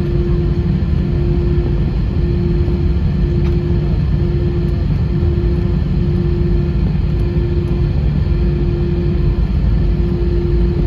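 Airbus A320 cabin noise: a steady low rumble from the engines and airflow, with a steady hum over it that drops out briefly about once a second.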